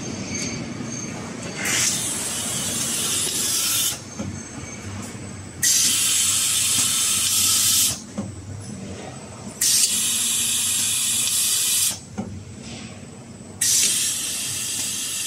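Automated laser welding station on a battery assembly line, hissing in bursts about two seconds long that repeat every four seconds or so, each starting and stopping abruptly. A steady machine hum runs beneath.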